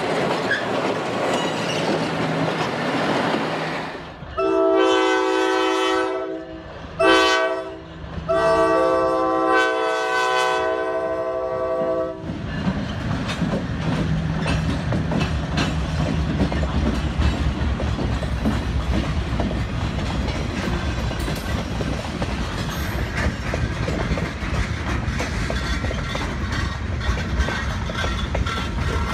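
Sierra Northern diesel locomotive air horn sounding several notes at once in three blasts, long, short, long, as it nears a grade crossing. Then the locomotives and freight cars roll past with a low rumble and wheels clacking over the rail joints.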